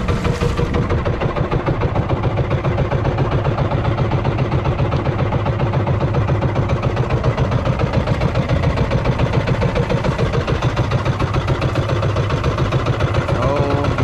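The small engine of an outrigger fishing boat running steadily at trolling speed, with a fast, even pulse.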